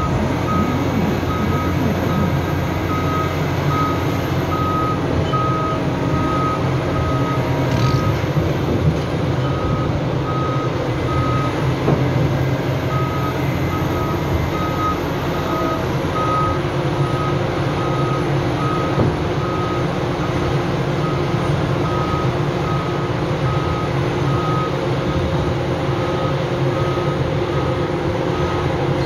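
Cat 6020 hydraulic mining shovel's travel alarm beeping in a steady run over the steady drone of its diesel engine as it tracks, the beeping pausing twice for a couple of seconds about a third of the way in.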